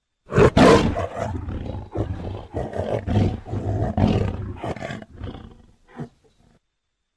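Sound-effect roar made for the sabre-toothed cat Smilodon, in the style of a big cat's roar: it starts loud about half a second in and goes on in pulses for about four seconds before fading. One short final call comes about six seconds in.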